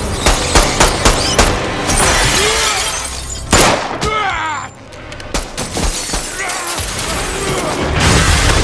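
Action-film soundtrack: a quick run of gunshots and impacts in the first second or so, a man's strained yell about three and a half seconds in, and glass shattering loudly near the end, with score music underneath.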